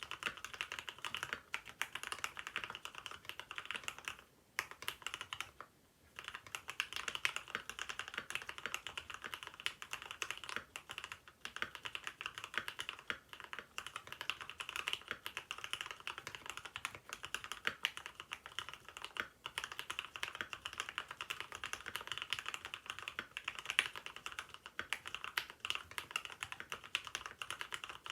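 Mechanical keyboard typed on continuously with fast, dense key clacks, a ringing, water-drop-like sound; the keyboard is used without its plate foam so it resonates. The typing pauses briefly about four seconds in and again just before six seconds.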